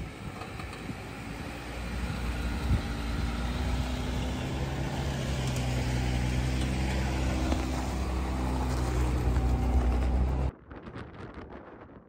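Lifted off-road Jeep's engine running steadily under load as it crawls up a rutted sandy climb and passes close by, growing louder. About ten and a half seconds in the engine sound cuts off abruptly, leaving wind noise on the microphone.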